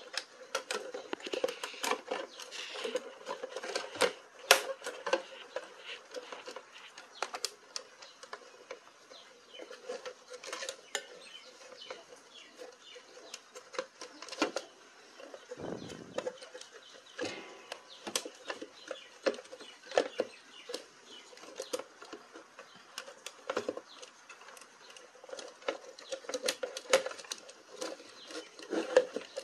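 Mixer grinder motor and plastic housing being handled during reassembly: irregular clicks, taps and knocks of plastic and metal parts and wires.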